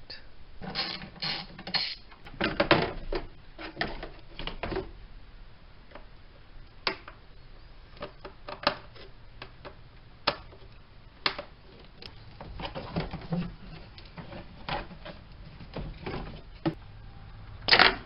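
Socket ratchet clicking in short runs and tools and plastic intake parts knocking and rattling while the bolts and housing of a Ford 5.4 V8's air filter assembly are removed, with one louder knock near the end.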